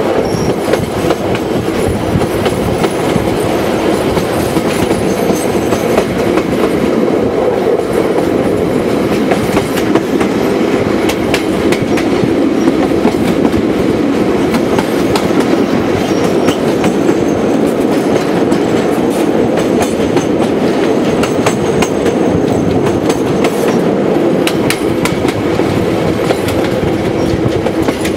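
Passenger train running along the track, heard from beside the open side of a carriage: a steady rumble of steel wheels on rail with irregular sharp clicks of rail joints.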